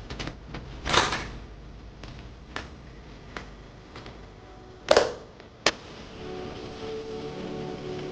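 A few sharp knocks and clicks of things being handled, the loudest about a second in and again about five seconds in, then soft background music comes in about six seconds in.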